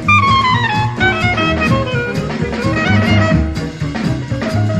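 Background instrumental music with a steady beat. A melody falls in pitch at the start over a low bass line.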